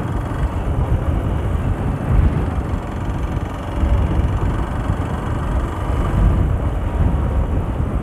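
Hero Xpulse 200 motorcycle being ridden along a road: its single-cylinder engine running under the rush of riding wind, heard as a continuous low, uneven rumble.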